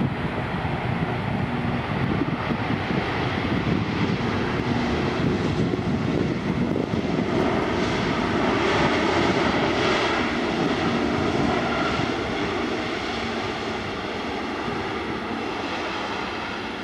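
Twin GE90 turbofans of an Air Canada Boeing 777 as it rolls along the runway, a steady jet rumble and hiss that grows to its loudest as the airliner passes, about nine seconds in, then slowly fades as it moves away.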